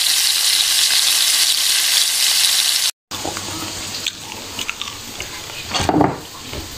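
Potato fries deep-frying in hot oil in a wok, a steady loud sizzle that cuts off abruptly about three seconds in. Quieter light knocks and rustling follow, with a louder rustle near the end.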